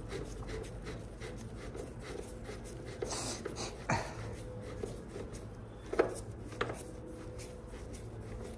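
A few short clicks, knocks and a brief rub from hands handling a clothes dryer's panel parts and screws during reassembly, over a faint steady hum.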